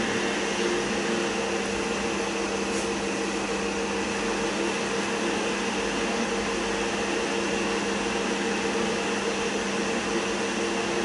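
Steady machine hum with several held tones over a constant noise, unchanging throughout.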